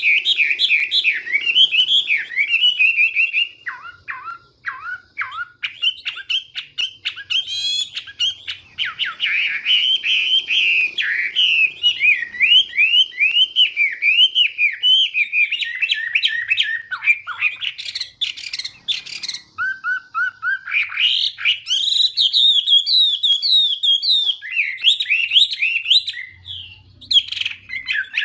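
Chinese hwamei (họa mi) singing a long, varied song of fast, sweet whistled phrases, with quick trills and rapid repeated notes. It pauses briefly twice, a few seconds in and near the end.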